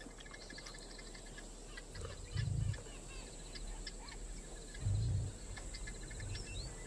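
Bush ambience of insects and birds: a faint steady high hiss with many small repeated chirps and ticks. Two deep low swells, the loudest sounds, come about two and a half and five seconds in.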